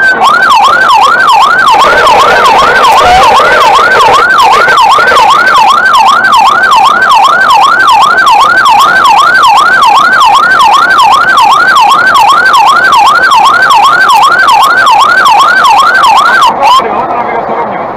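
Fire engine siren in a fast yelp, its pitch sweeping up and down a little over twice a second, over engine and road noise; it cuts off near the end.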